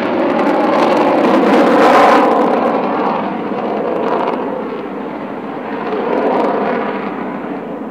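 Avro Vulcan XH558's four Rolls-Royce Olympus turbojets in a steep climb: a loud jet roar with faint steady tones running through it. About two and a half seconds in the sound dulls and fades as the bomber banks away, swelling briefly again near the end.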